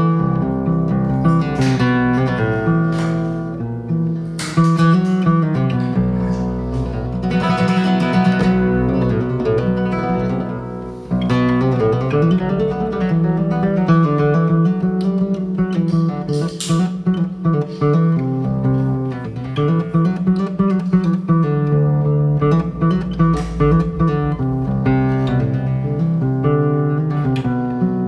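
Background music led by acoustic guitar, plucked and strummed.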